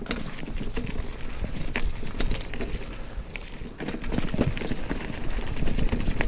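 Motobecane hardtail mountain bike rolling down a leaf-covered dirt trail: knobby tyres crunching over leaves, dirt and small rocks, with frequent clicks and rattles from the bike and a low rumble of wind on the microphone.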